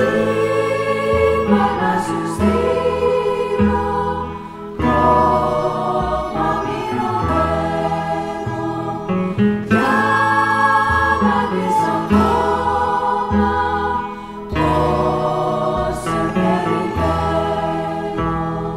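Greek bouzouki instrumental music with a bass line moving in steady steps, pausing briefly between phrases about five and fifteen seconds in.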